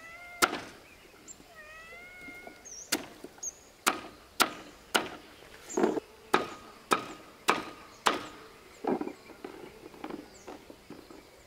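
A cleaver chopping taro on a wooden chopping board: about a dozen sharp chops roughly half a second apart, starting about three seconds in, some with a short metallic ring from the blade. Near the start a cat gives two short meows.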